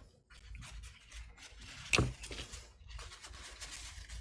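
Handling and scraping of small metal padlock parts, with one sharp click about halfway through, as the lock cylinder is worked out of a Master Lock padlock body.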